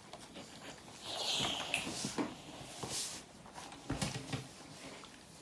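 Ironing clothes on an ironing board: a short hiss about a second in, then the clothes iron knocking and rubbing on the board and fabric a few times.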